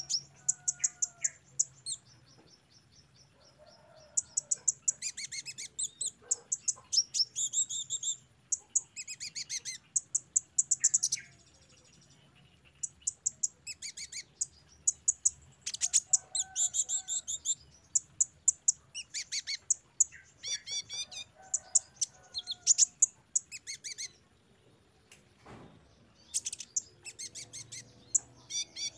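Male kolibri ninja sunbird singing: fast, high-pitched twittering made of rapid trills and chips, coming in bursts with short pauses between them.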